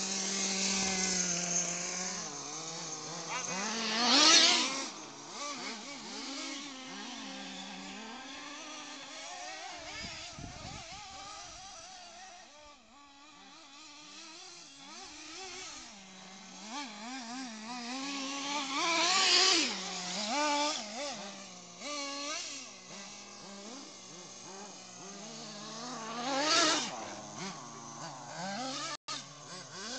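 Petrol-engined remote-controlled cars racing, their small engines revving up and down. Three loud pass-bys come close, about four seconds in, around nineteen seconds and around twenty-seven seconds.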